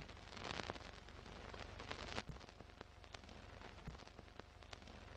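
Faint old-film crackle: a low hiss with scattered clicks and pops, a little fuller in the first two seconds.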